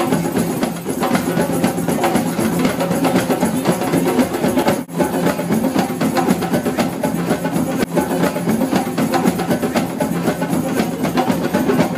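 A group of hand drums, djembes and congas, played together in a dense, driving drum-circle rhythm. The sound cuts out for an instant about five seconds in.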